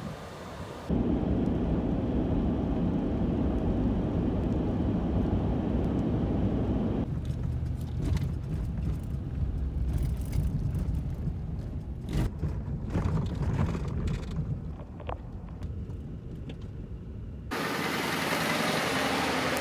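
Ford F-150 pickup truck driving: a steady low rumble of engine and road noise, then rattles and knocks heard from inside the cab as it bumps along a rough dirt two-track. Near the end comes a broad rush of tyres on the sandy dirt road as the truck drives past.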